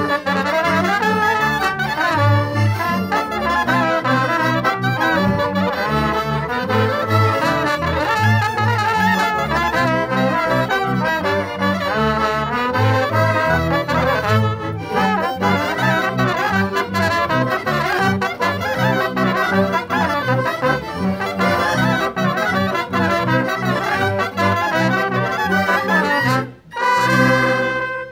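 Polish village folk band of trumpet, clarinet, violin, accordion and double bass playing a tune, the bass pulsing steadily underneath. Near the end there is a short break, then a held final chord, and the music stops.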